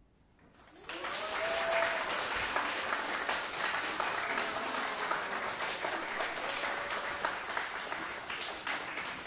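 Audience applauding, breaking out suddenly about a second in after a moment of silence, with a few voices calling out over the clapping.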